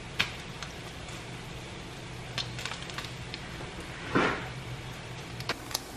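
Kitchen handling sounds: scattered light clicks and clatter of cookware, with one heavier thump about four seconds in, over a steady low hum.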